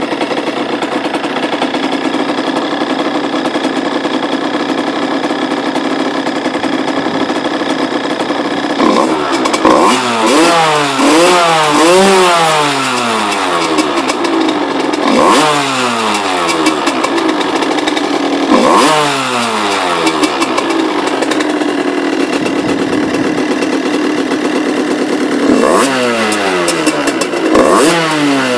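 Derbi Senda two-stroke engine with an Airsal 70 cc kit, upjetted carburettor, de-restricted manifold and Yasuni Cross exhaust, idling steadily and then revved. About nine seconds in comes a quick run of throttle blips, then single blips every few seconds, each rev rising and dropping back to idle.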